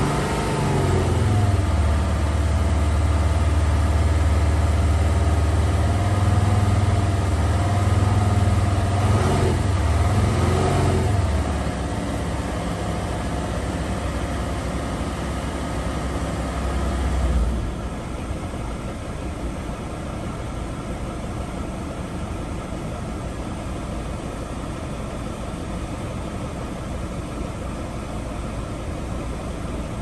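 Sprinter van's diesel engine held above idle with a little throttle, rising slightly twice, then dropping back about halfway through and settling to a lower idle a few seconds later. The extra revs spin the A/C compressor faster to build refrigerant pressure in a system that was not yet cooling.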